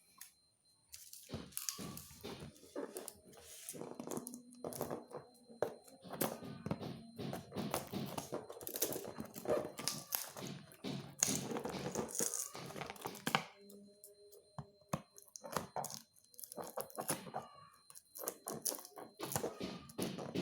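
A sealed parcel being unpacked by hand: packing tape and plastic wrap tearing and crinkling, with irregular knocks and thunks as the box and its contents are handled.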